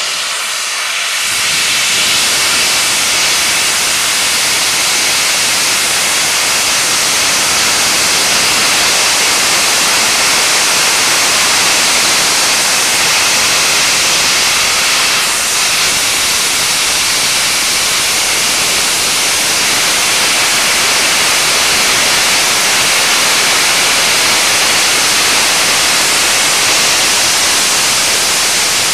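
Steam escaping from Bulleid Battle of Britain class light Pacific 34067 'Tangmere', a loud steady hiss that builds up over the first second or two and then holds.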